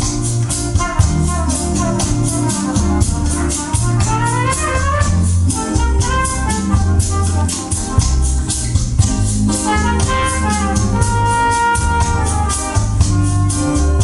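Music played back through Wharfedale Diamond 9.5 floorstanding speakers and a Wharfedale Diamond SW-150 subwoofer: heavy, sustained bass notes under a fast, steady percussion tick and keyboard-like melodic lines.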